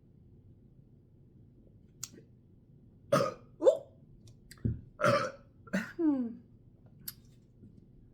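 A woman burping in a rapid run of about six short, loud burps, the last one sliding down in pitch.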